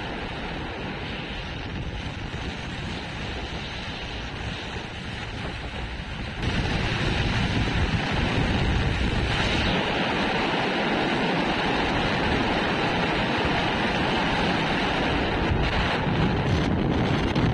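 Wind rushing over the microphone of a camera on a moving motorcycle, a steady noisy roar with traffic and road noise under it; it gets clearly louder about six and a half seconds in.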